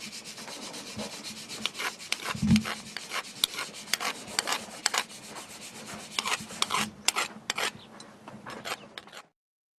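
Irregular scraping and rubbing strokes of a hand tool working a copper bracelet, with one louder knock about two and a half seconds in. The sound cuts off abruptly near the end.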